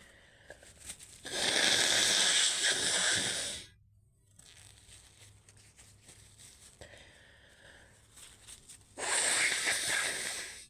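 A woman's two long, forceful noisy exhalations through the nose, each about two seconds, starting suddenly about a second in and again near the end, with softer breathing between them.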